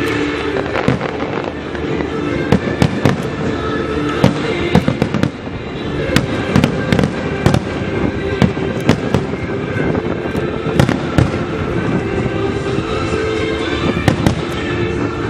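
Aerial fireworks shells bursting in quick, irregular succession: many sharp bangs and crackles, over music playing steadily in the background.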